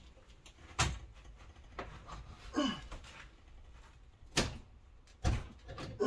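Sharp metal clacks and knocks of a 200 amp cartridge fuse being forced into stiff fuse clips in an electrical disconnect. The loudest knock comes about a second in and two more near the end.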